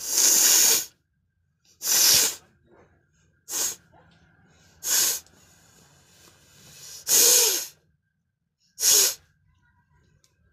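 A person sneezing repeatedly: six loud sneezes, one every one and a half to two seconds, the first the longest.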